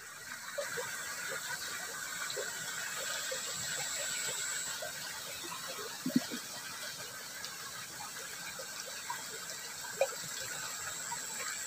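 Water running in a small ditch, a steady rushing burble. Two brief knocks come about six and ten seconds in.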